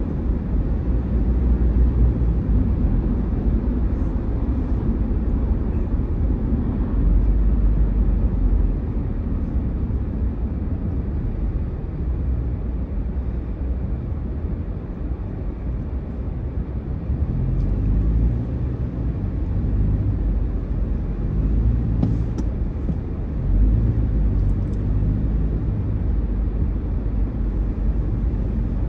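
Steady low rumble of a car's engine and tyres heard from inside the cabin while driving, a little softer for a few seconds in the middle as the car slows in traffic.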